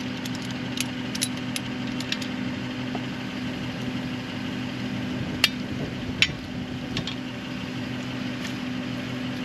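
An engine idling with a steady hum, with a few sharp clicks and clinks from hand tools and metal pump parts being handled, the loudest two about halfway through.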